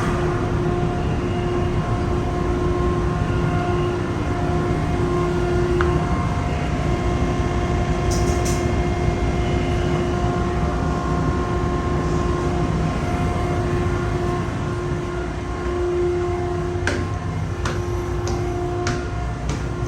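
Steady low engine rumble with a constant droning hum, as heard from inside a moving vehicle or ship; a few light clicks come near the end.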